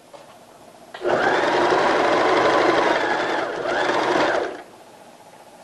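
Domestic electric sewing machine stitching a seam in cotton knit fabric. It starts about a second in, runs steadily, slows briefly and speeds back up, then stops about a second before the end.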